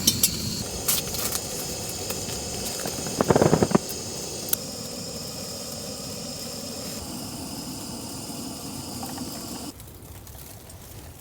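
Portable gas camping stove burning with a steady hiss while it heats water, with a short clatter about three seconds in. The hiss cuts off near the end, as the stove is shut off.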